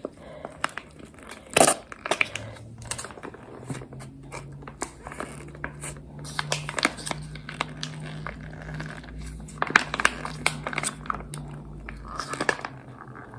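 A crinkly chili package rustling and crackling as its contents are squeezed and scraped out, with many small crackles. A low steady hum runs under most of it.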